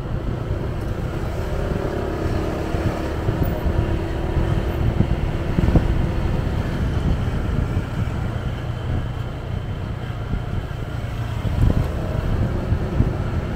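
City street traffic heard from a moving vehicle: a low rumble of engines and tyres, with wind buffeting the microphone. A steady engine hum holds for about five seconds in the first half.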